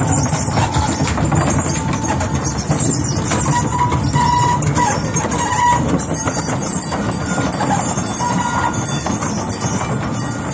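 Wooden axles of ox carts squealing, the wavering, held whine known as the carts' 'song', coming and going over a steady rumble.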